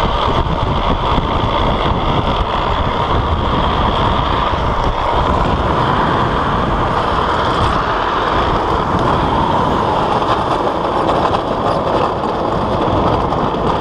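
Wind buffeting a helmet-mounted camera mixed with the steady rumble and scrape of a drift trike's hard rear wheels rolling and sliding on asphalt at downhill speed. It is loud and even throughout.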